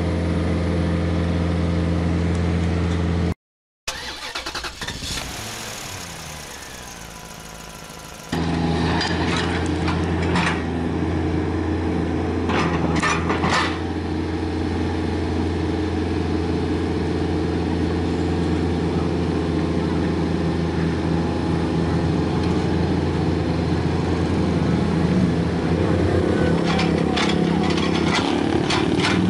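Komatsu PC45MR mini excavator's diesel engine running steadily close by. About three and a half seconds in, the sound drops out briefly and runs quieter for a few seconds before the engine comes back loud. A few sharp knocks come through in the middle, and more near the end.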